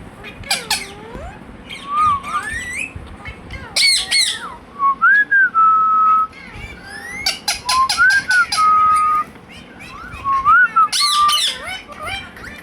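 Indian ringneck parakeet whistling short notes that glide up and down, some held steady, broken every few seconds by harsh, shrill screeches.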